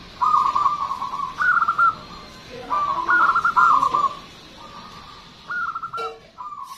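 Zebra dove (perkutut) singing its rapid, stuttering coo, two loud phrases of about a second and a half each, followed by shorter, fainter phrases near the end.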